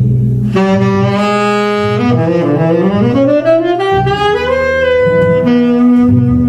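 Saxophone playing a jazz fill between sung lines over double bass, with held notes and a rising run through the middle.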